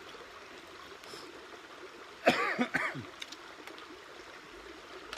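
A man clears his throat with a short, harsh cough a little over two seconds in, over a steady rushing background.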